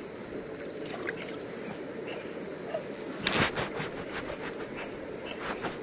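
Crickets trilling steadily at night over the low, steady hiss of a shallow stream. A little over three seconds in comes a short scraping, splashing burst from a fish and knife being handled at the water's edge, with a few faint ticks around it.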